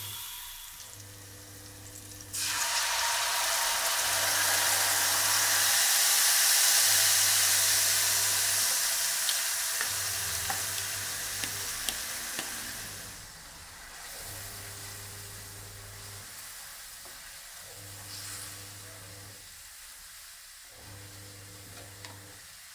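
Homemade barbecue sauce sizzling in a hot frying pan, starting suddenly about two seconds in and dying down after about ten seconds to a quieter simmer. Under it, the cooktop hums low, switching on and off every couple of seconds.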